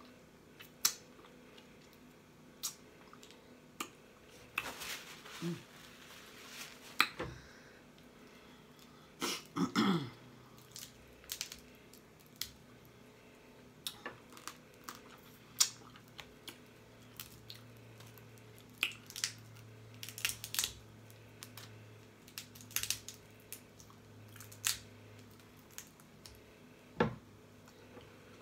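Blue crabs being eaten close to the microphone: shells cracking and snapping, with wet chewing and lip smacking, in scattered sharp bursts. A short low sound from the eater's throat falls in pitch about ten seconds in.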